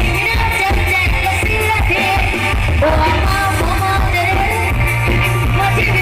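Loud live band music from a Thai rot hae sound truck: a singer over heavy, steady bass and amplified instruments blaring through the truck's large PA system.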